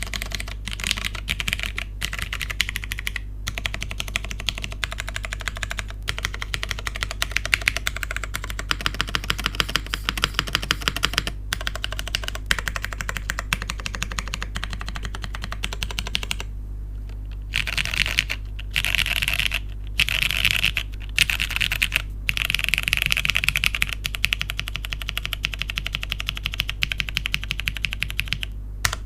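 Neo80 custom mechanical keyboard typed on fast and continuously. It has an aluminium plate on an O-ring brass mount, lubed and filmed Cherry MX Purple tactile switches, and PBT keycaps. A stream of key clacks runs with short pauses, and denser rapid runs of keystrokes come in the last third.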